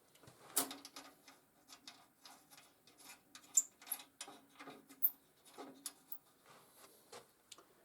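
Irregular light clicks and knocks of things being handled, over a faint steady hum.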